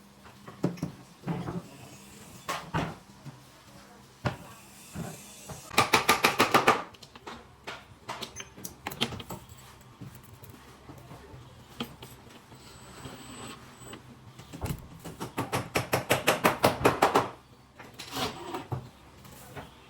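Carpentry work on kitchen cabinets: scattered knocks and clatter. Two runs of rapid, evenly spaced strikes stand out, a short one about six seconds in and a longer one of about two seconds near fifteen seconds in.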